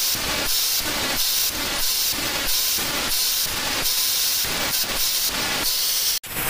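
Angle grinder with an abrasive disc grinding the edges of stacked stainless steel bellows rings: a loud, hissing grind that swells and eases about one and a half times a second as the disc works across the rings. It cuts off abruptly near the end.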